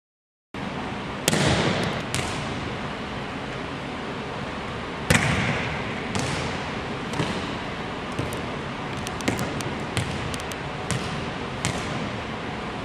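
A volleyball being hit and bouncing on a hardwood gym floor: about ten sharp smacks, the loudest about a second in and about five seconds in, each echoing around the large empty gym. The first half-second is silent.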